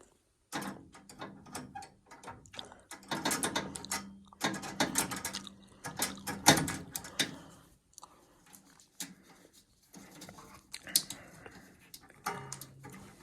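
Hand tools clicking, rattling and scraping on a gas furnace as the flame sensor is taken out to be cleaned after the furnace locked out on a flame-sensor failure.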